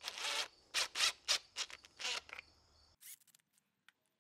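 Cordless drill driving a screw into a small orange plastic fitting in a string of short trigger bursts, about seven in the first two and a half seconds, followed by a few light clicks near the end.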